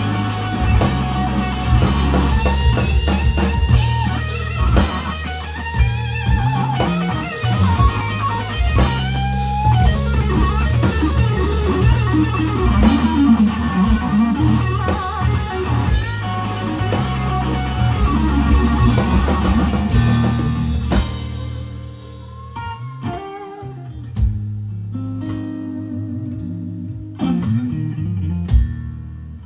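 Blues band playing a slow blues: electric guitar lead with bent notes over bass and drum kit. About two thirds of the way through, the band drops down and the guitar plays on quietly and sparsely.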